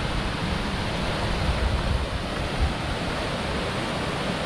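River water rushing over rocky rapids and small falls: a steady rush of white water, with a low rumble of wind on the microphone.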